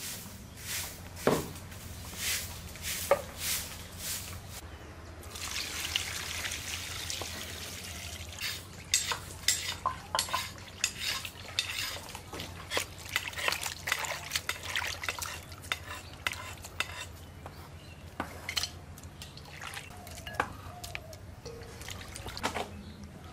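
Kitchen handling sounds: a run of sharp clinks and knocks of pots and utensils, with a spell of running water about five seconds in.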